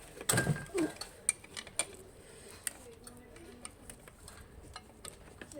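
Light clicks and clinks of small hard objects being handled, a few sharp separate clicks over the first couple of seconds after a short rustle.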